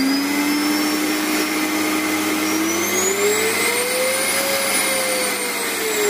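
Philips PowerLife FC8450 1900 W vacuum cleaner running, just switched on, its motor whine finishing its climb in the first half second, rising in pitch from about three seconds in and falling back near the end. The motor runs normally, its impeller cleaned of the stuck debris that had unbalanced it and made it roar like a plane taking off.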